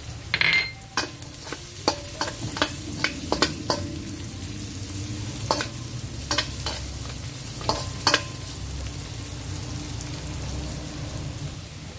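Sliced sausage frying with minced onions and garlic in oil in a stainless steel wok: a steady sizzle while a spatula stirs and scrapes, clicking against the pan many times.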